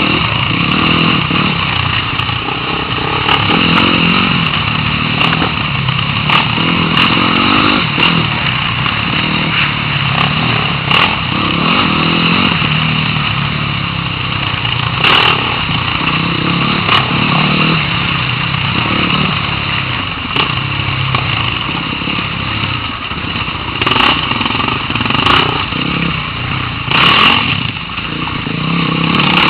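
Dirt bike engine running continuously, its pitch rising and falling as the throttle opens and closes over rough ground, with scattered sharp knocks.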